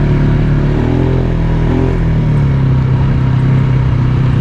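Polaris Sportsman ATV engine running steadily under way, its pitch dropping slightly about a second in.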